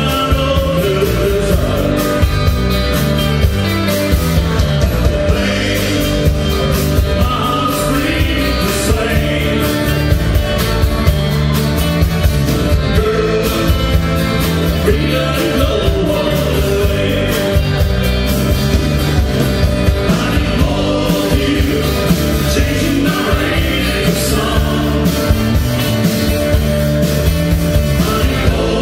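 Live country band playing: electric and acoustic guitars, bass guitar and drums, with singing over a steady beat.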